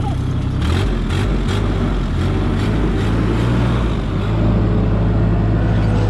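Terex PT-30 compact track loader's small diesel engine running, its note changing under load about a second in as the machine is worked, with a few sharp clacks from the machine.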